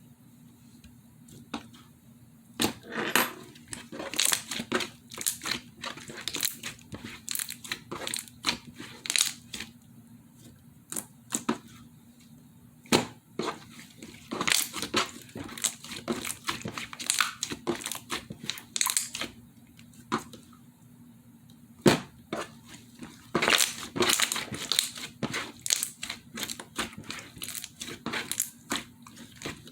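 Slime being squeezed, pressed and stretched by hand, giving irregular sticky crackles, clicks and pops, some sharp and loud.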